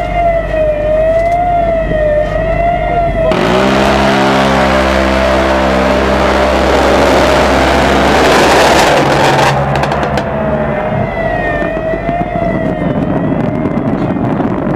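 Base warning siren for incoming indirect fire, sounding a fast rise-and-fall warble. About three seconds in, a loud rushing noise over a steady low hum drowns it for around six seconds, then the warble comes back.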